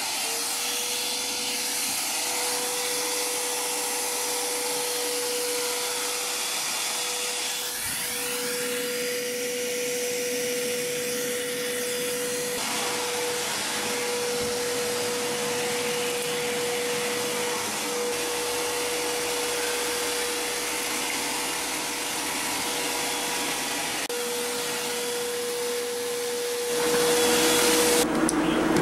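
Electric vacuum cleaner running steadily: an even rushing noise with a constant motor whine, which stops near the end.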